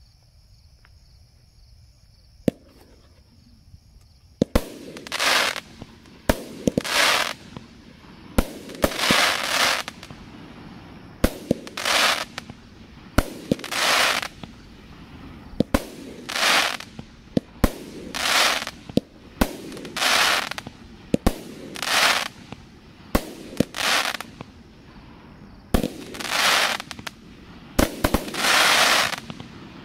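No Name Fireworks 'Plague Doctor' 500-gram aerial repeater cake firing shot after shot, from about four seconds in. It fires about one shot every two seconds: each sharp launch thump is followed a moment later by a crackling palm break.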